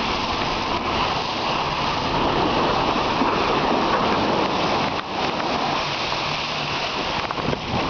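Car driving through deep water over the river ice crossing: a steady rush and spray of water against the body and wheel wells, heard from inside the cabin.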